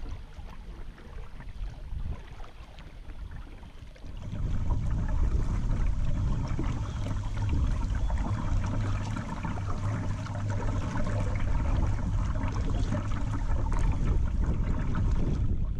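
River water rushing and rippling around a kayak moving through a riffled stretch of river, getting louder about four seconds in and staying up until near the end.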